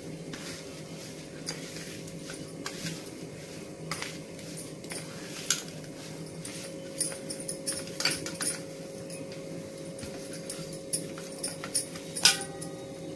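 A hand mixing and kneading khoya with sugar on a stainless steel plate: irregular light scrapes and clicks of fingers against the metal, over a steady low hum.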